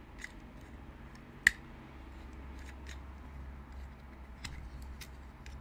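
Plastic pet nail clipper being handled, giving a few scattered clicks, the sharpest about a second and a half in.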